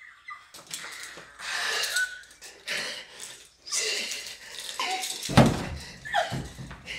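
A woman's frantic non-speech vocalising: breathy shrieks, gasps and panting, with a few heavy thumps a little past five seconds in.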